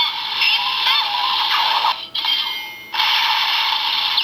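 Electronic finisher sound effects from the DX Enkeiken Rouen toy sword, played through its small built-in speaker and sounding thin and tinny: gliding electronic tones, a brief drop about two seconds in, then a dense hissing blast.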